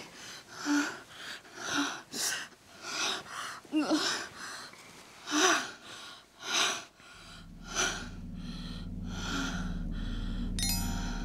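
Heavy panting and gasping breaths during sex, roughly one a second and uneven, some with a low moan in them. From about seven seconds in, a low steady music drone rises underneath, and bell-like chiming notes begin near the end.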